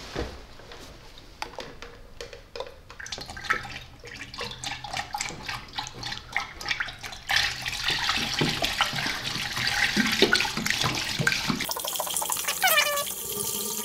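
Antifreeze coolant poured from plastic jugs into a tractor radiator's filler neck, splashing and glugging. It gets louder about seven seconds in, and near the end the glugs rise in pitch.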